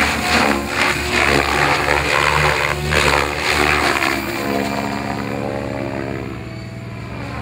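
Radio-controlled model helicopter in flight: motor and main rotor running with a pulsing blade chop, getting quieter after about four seconds as it climbs away.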